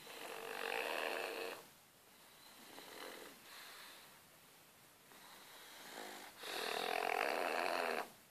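Pugs snoring in their sleep: two long, loud rattling snores about six seconds apart, with a softer breath between them.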